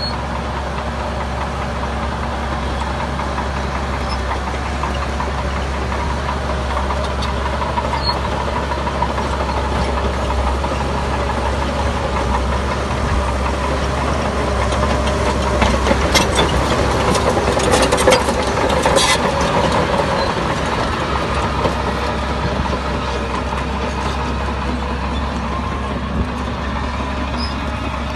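Heavy diesel engine of construction machinery running steadily, growing louder about two-thirds of the way through, with a short run of metallic clanks and rattles.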